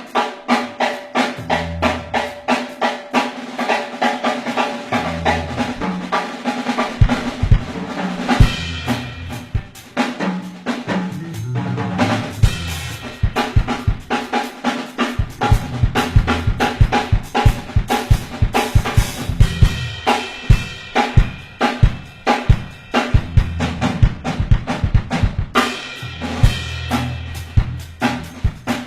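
Drum kit played solo: fast snare and tom fills with bass drum kicks and cymbals, a busy groove that changes pattern several times.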